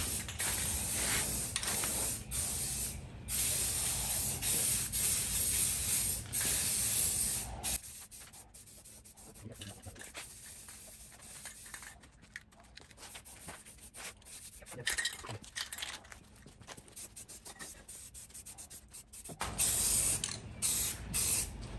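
Aerosol spray can of primer hissing in long bursts, with a short break about three seconds in. A quieter stretch of faint ticks and handling noises follows, and the spray hiss starts again shortly before the end.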